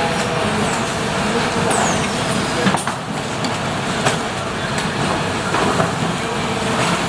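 Factory assembly-line noise: a steady din of machinery and air, with scattered sharp clicks and knocks of parts and trays being handled, and a brief falling high squeal about two seconds in.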